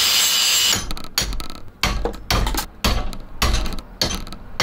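Angle grinder cutting into the steel of a motorcycle steering stem and triple clamp for under a second, then a quick series of sharp hammer blows on the steel, two or three a second.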